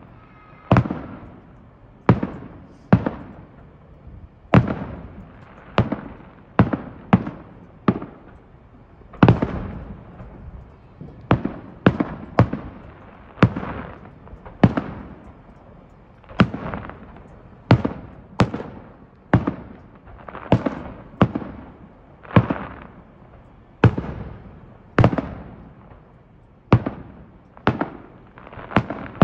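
Fireworks going off: a long series of sharp bangs, roughly one or two a second at uneven spacing, each followed by a fading echo.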